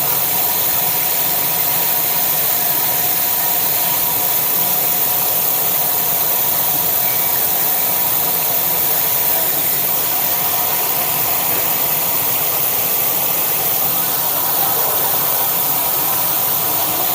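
A steady, loud spray of water washing mud out of a flood-damaged gas furnace, with a faint steady hum under the hiss.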